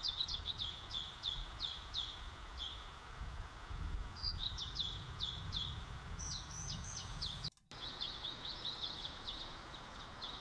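AI-generated forest ambience: birds chirping in repeated runs of short, quick, downward-sweeping notes over a steady low background noise. It cuts out for a moment about seven and a half seconds in, as a second generated clip starts, and the chirping carries on.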